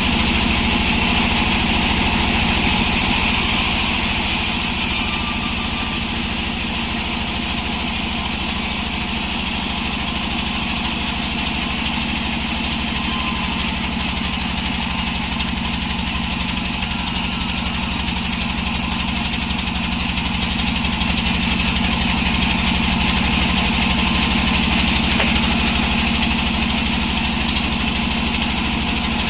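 Engine-driven sawmill running steadily, slightly quieter for a stretch from about four seconds in and louder again later on.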